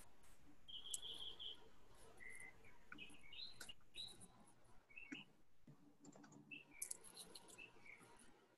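Near silence: room tone with faint, short bird chirps and a few soft clicks.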